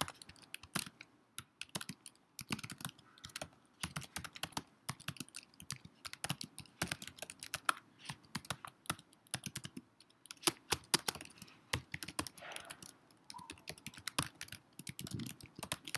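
Typing on a computer keyboard: a fast, irregular run of key clicks as a sentence is typed, with a couple of short pauses.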